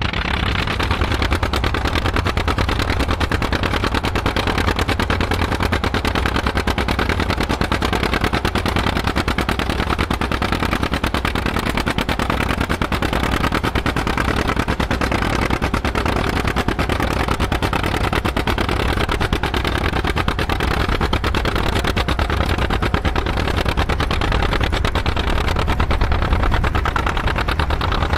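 Tandem tractor engines running steadily under power, with a fast, even exhaust beat.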